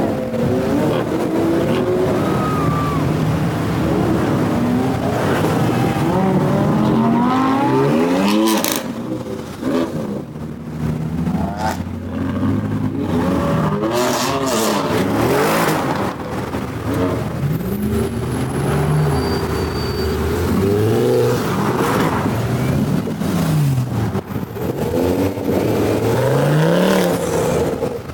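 Cars driving off one after another, their engines revving, each engine note rising and then falling in pitch as it pulls away past.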